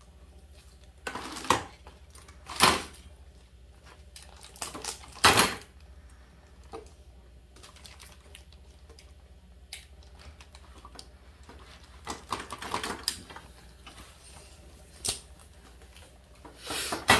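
Plastic wrapping crinkling and plastic baby-bouncer frame parts being handled, in short bursts a few seconds apart, the loudest a little over 2.5 s and a little over 5 s in.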